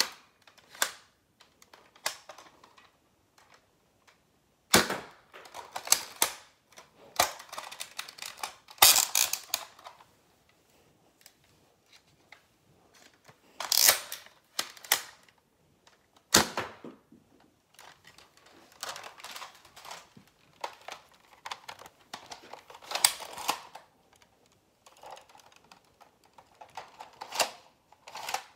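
Plastic pump-action toy foam-dart blasters being pumped and reloaded: repeated plastic clacks and rattling of the pump slides, with loud sharp snaps about five seconds in and twice around the middle.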